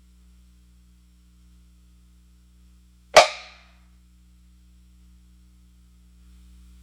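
A 'fail' punchline sound effect: one sudden sharp hit about three seconds in, dying away within half a second, over a faint steady low hum.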